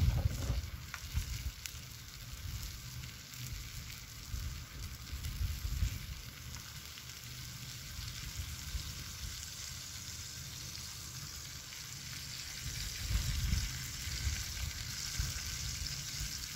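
Steak sizzling in a cast-iron skillet on a portable butane stove: a steady frying hiss that grows louder near the end as butter goes into the hot pan.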